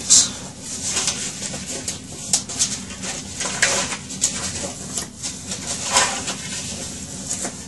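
A sheet of patterned paper being folded by hand, its scored flaps creased back out: irregular crisp rustles and crinkles.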